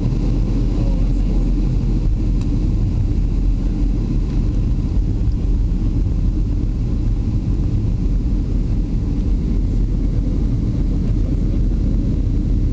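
Steady low cabin rumble inside a Boeing 737-400 on descent, the noise of its CFM56-3 engines and the airflow heard through the fuselage.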